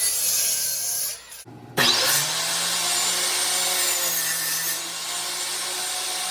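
Power saw cutting through a wooden 4x4 post. It spins up at the start, breaks off briefly about a second and a half in, then runs steadily through the wood.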